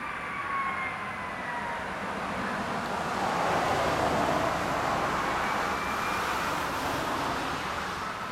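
Fire engine pumper on an emergency response going by with its siren wailing. The rush of the truck grows loudest about four seconds in, then fades.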